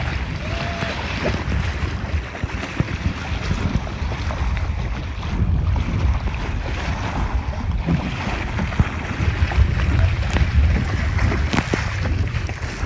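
Strong wind buffeting the microphone in gusts, over waves and splashing water.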